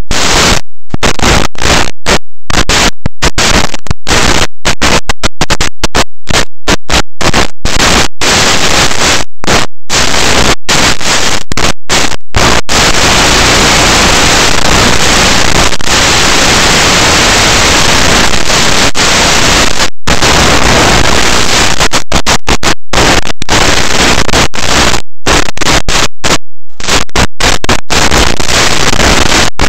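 Loud, even hiss of static from an analog FPV video link's audio channel, cutting out to silence in many abrupt split-second dropouts, with an unbroken stretch of hiss in the middle.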